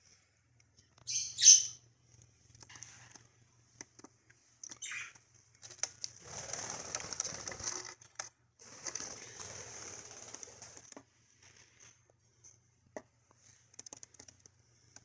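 Budgerigars giving a couple of sharp, falling chirps about a second in and another call near five seconds, then two spells of wing fluttering and scuffling, each about two seconds long.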